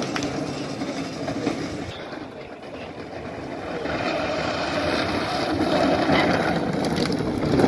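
Wheels of an unpowered downhill racing cart rolling over asphalt, a rumbling hiss that dips about two seconds in and then grows steadily louder as the cart approaches.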